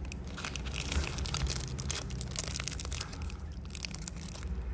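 Handling noise: a steady run of small clicks, crackles and rustling as metal Zippo lighters are picked up and moved about.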